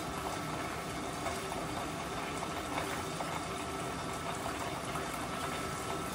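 Hot corn oil sizzling steadily as food deep-fries, with faint scattered crackles.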